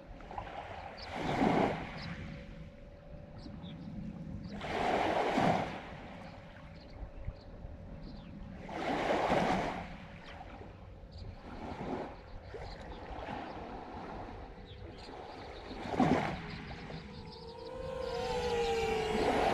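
FPV quadcopter in flight: its motors hold a steady tone, with a swell of rushing noise about every four seconds. Near the end the motor pitch slides up and down.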